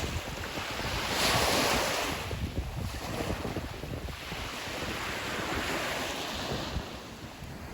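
Sea of Azov surf washing on the shore, with wind buffeting the microphone. The hiss of the waves swells about a second in and again around five to six seconds.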